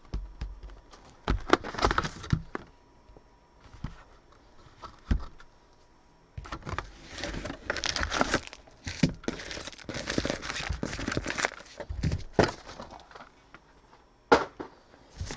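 Foil-wrapped trading card packs crinkling as they are handled and lifted out of a cardboard hobby box, in bursts with light knocks of packs set on a table and a sharp tap near the end.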